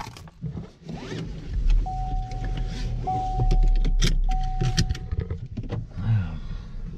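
Car interior with the engine running: handling clicks and rustles, and a steady tone that holds for about three seconds in the middle, broken twice.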